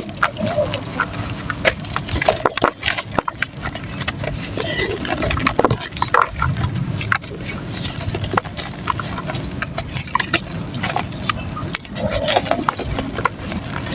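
Soft mud chunks crumbling in water and wet mud paste being squished and sloshed, with a steady stream of small irregular crackles and squelches.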